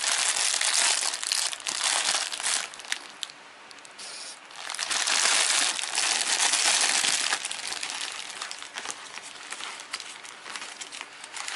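Clear plastic bags crinkling as hands squeeze and open them. The crinkling is loud for the first few seconds and again from about four and a half to seven and a half seconds in, then turns to softer rustling with small clicks.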